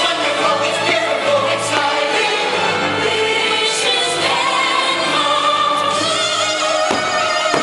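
Fireworks-show soundtrack: orchestral music with a choir singing.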